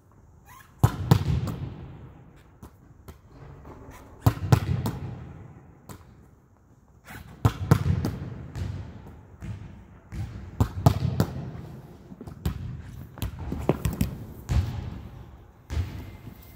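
A volleyball being struck by a player's hands and forearms and rebounding off a concrete-block gym wall: sharp slaps, often in quick pairs, coming every few seconds, each with a ringing echo in the gymnasium.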